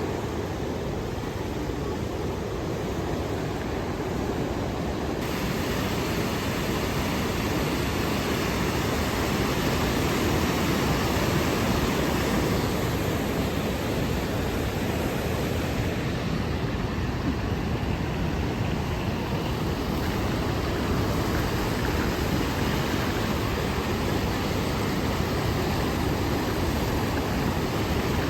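Steady rushing of river water over small rapids, an even noise with no separate events. The hiss grows brighter about five seconds in.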